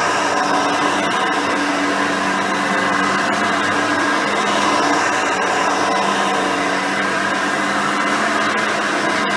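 Custom Hoover Elite 350 upright vacuum cleaner running steadily while vacuuming, its rebuilt 5-amp motor and 7-blade fan whirring with a steady hum under a rushing of air.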